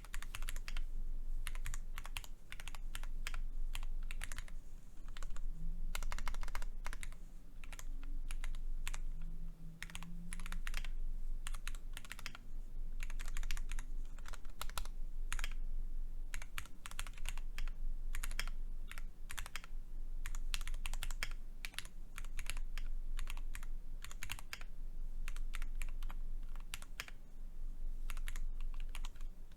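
Steady fast typing on a custom 60% mechanical keyboard with Cherry MX2A Black linear switches, an aluminium plate in a top mount and GMK-profile keycaps: dense key clacks in runs with brief pauses.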